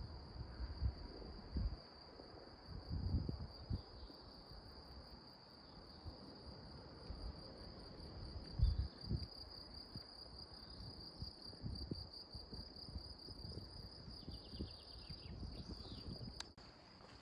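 Crickets chirring in a steady, high continuous trill, over low thumps of footsteps. The chirring cuts off suddenly near the end.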